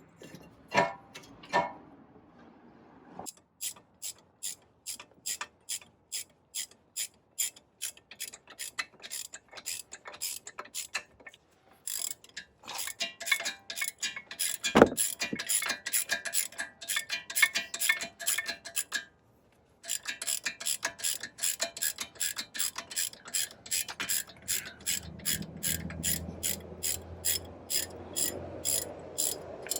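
Hand ratchet wrench clicking in runs of quick strokes as it drives in the brake caliper bracket bolts. The clicks come slowly at first and then faster, with one short pause about two-thirds through and a single louder knock near the middle.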